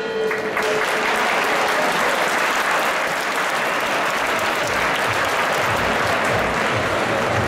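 Arena crowd applauding and cheering at the end of a kickboxing round, a steady wash of clapping. The ring bell that ended the round is still ringing for the first half-second and fades out.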